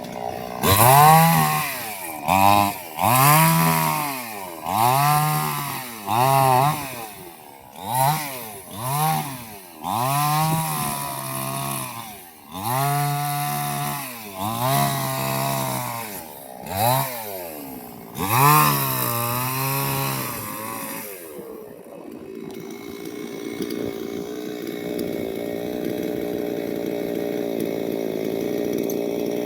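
Chainsaw engine revved up to full speed and back down about a dozen times in quick succession, each rev held for a second or two. Near the end of the revving it drops to a steady idle that runs on.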